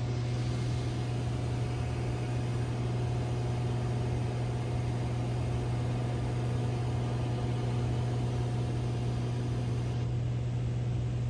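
Light high-wing propeller plane in flight, heard from inside the cabin: the engine and propeller make a steady, unchanging drone.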